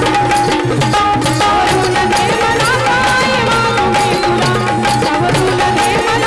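Live Marathi folk song: a woman singing into a microphone over tabla-type hand-drum percussion and a held-note melody accompaniment, at a steady loud level.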